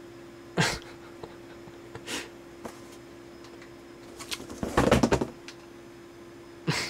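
Scattered clicks from an old CRT monitor and its front-panel buttons, with a dense cluster of clicks and rattling about four to five seconds in as the monitor's on-screen menu is opened, over a steady low hum.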